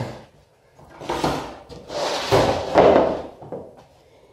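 A large MDF sheet being slid and turned across a workbench: two scraping, rubbing passes of board against the bench, the second longer and louder.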